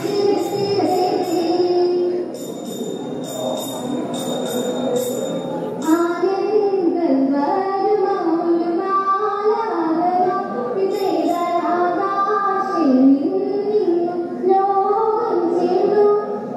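Female voices singing a Margam Kali song, the traditional dance song of Kerala's Saint Thomas Christians, in a flowing melody that grows fuller about six seconds in. Sharp rhythmic beats mark time in places, most clearly a few seconds in.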